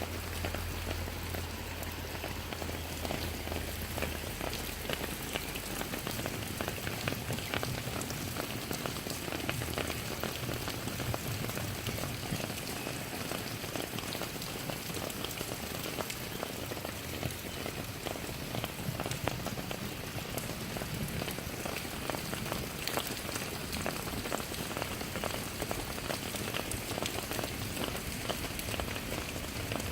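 Steady rain falling, an even hiss dotted with the sharp ticks of many individual drops striking close by. A low rumble underneath stops about four seconds in.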